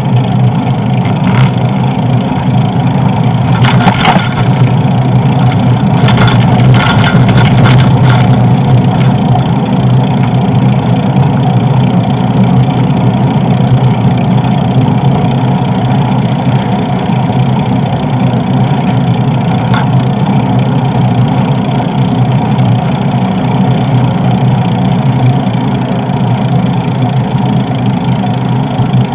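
Steady loud rumble from a moving bicycle's handlebar camera: wind rushing over the microphone and tyres rolling on asphalt. There is a brief crackle about four seconds in and a few more a couple of seconds later.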